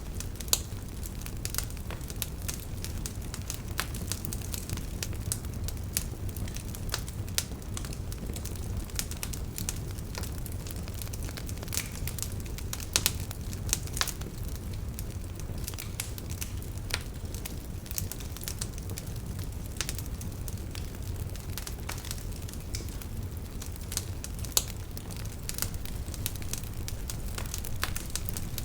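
Wood campfire burning, with a steady low rumble of flames and irregular crackles and sharp pops, a few louder pops standing out.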